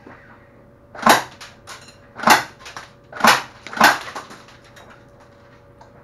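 Tokyo Marui AA-12 electric airsoft shotgun, fed from a drum magazine, firing four single shots over about three seconds, the last two close together. Each sharp crack is followed by lighter scattered clicks.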